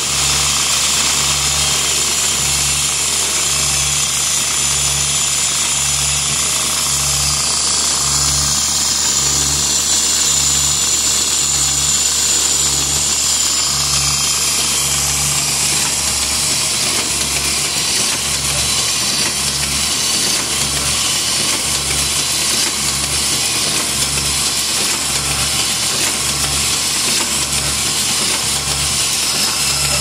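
F.L. Smithe AF automatic clasp envelope machine running at speed: a dense, loud mechanical clatter from its feeding and folding mechanisms, over a steady, regular low pulse.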